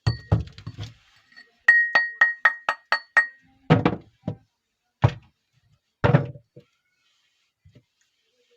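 Hands handling soap bars and their packaging: a cluster of knocks, then about seven quick taps, about four a second, each with a short ringing tone, then several duller thuds spaced out.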